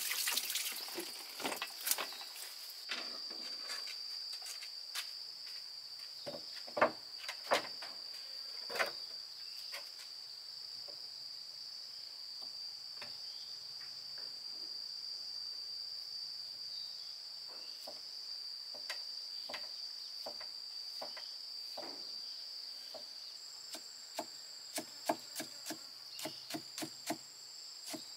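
Crickets or similar insects keeping up a steady high-pitched drone, with scattered sharp knocks and clicks over it, coming faster near the end.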